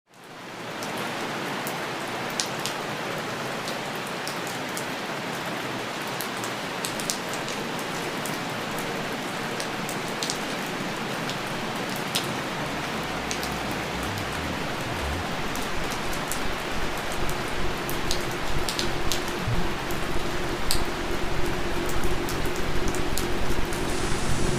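Steady rain falling, with scattered sharp drip ticks, fading in from silence over the first second. About halfway through a low rumble joins, and the sound grows louder and more uneven toward the end.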